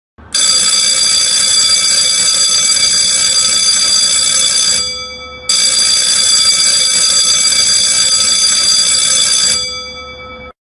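Countdown timer's alarm sounding at zero: a loud, steady ringing in two long bursts of about four seconds each, separated by a short break, each fading at its end.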